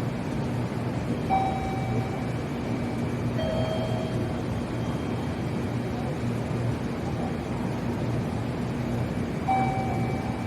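Train at a station platform: a steady low rumble and hum, with three short tonal beeps or squeals over it, about a second in, at three and a half seconds, and near the end.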